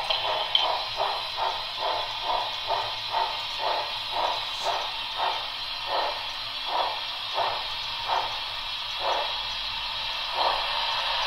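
HO scale model steam locomotive's sound system chuffing through its small speaker over a steady steam hiss. The chuffs start at about three a second, slow steadily as the engine eases to a stop, and die out near the end.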